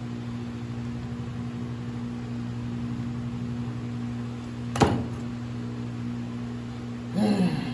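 Steady low machine hum, with a sharp knock about five seconds in and a short burst that drops in pitch near the end.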